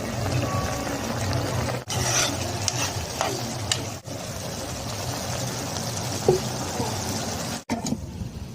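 Instant noodles cooking in a pan: a steady sizzling hiss with stirring, broken by a few clicks. The sound cuts out briefly three times, about two, four and near eight seconds in.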